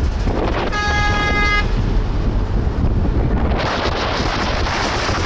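Wind buffeting the microphone over the low road rumble of a moving car, with one short vehicle horn honk about a second in. A rushing hiss of wind grows louder in the second half.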